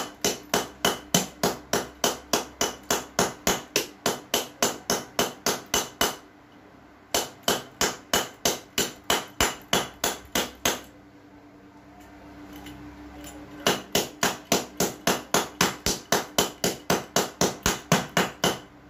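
Rapid hammer blows, about four a second, pounding a USB Type-C charger plug against a stone tile floor. The blows come in three runs separated by two short pauses, over a faint steady hum.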